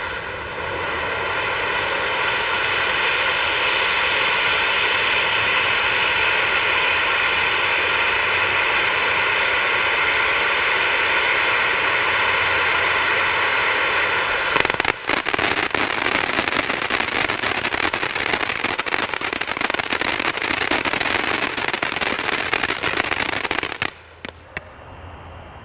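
Black Cat Summer Rain firework fountain, a small angled fan fountain, spraying with a steady loud hiss. About fifteen seconds in it switches abruptly to dense, fast crackling, its crackle finish, which cuts off suddenly near the end.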